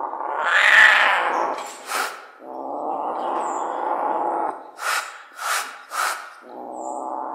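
A young Sunda leopard cat growling and snarling in long drawn-out rumbles, three of them, the first swelling loudest about a second in, with four short, sharp spitting hisses in between. This is a defensive threat at the hand and spoon held out to it.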